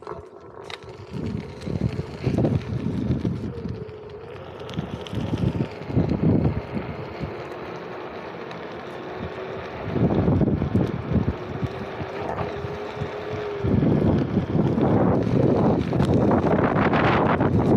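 Wind buffeting the microphone in gusts, turning into a constant loud rush about fourteen seconds in. Underneath the gusts, a Onewheel electric board's hub motor gives a faint steady whine that drifts slightly in pitch, and it stops as the rush takes over.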